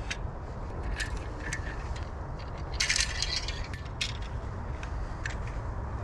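Folding bow saw being unfolded and assembled: its metal frame and blade clicking and rattling as the parts swing out and lock, with a burst of metallic jangling about three seconds in.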